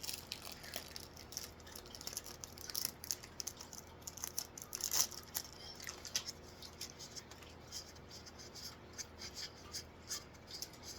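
Magic: The Gathering cards being handled and flipped through by hand: a run of short, irregular clicks and rustles of card stock.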